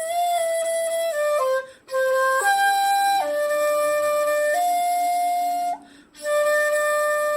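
Shakuhachi playing a slow melody of steady held notes without vibrato (yuri), tonguing to separate the notes. There are two short breaks for breath, about two seconds in and about six seconds in.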